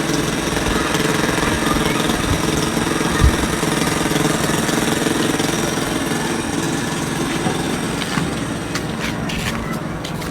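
Small petrol engine of a water pump running steadily, sucking water out of the soakaway pit, with one dull thump about three seconds in.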